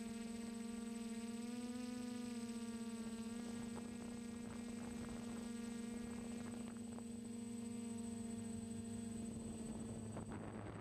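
Steady buzzing hum of a DJI Flame Wheel F450 quadcopter's motors and propellers in flight, its pitch rising briefly about two seconds in. Wind noise and a few faint knocks join from about halfway.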